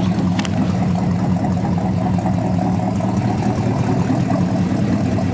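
1968 Pontiac GTO's 400 cubic-inch V8 idling steadily and running smoothly.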